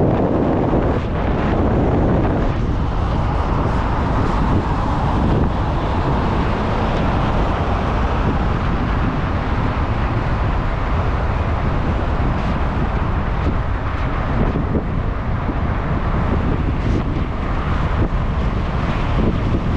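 Wind buffeting the microphone over the steady rumble of a moving vehicle, with no clear change throughout.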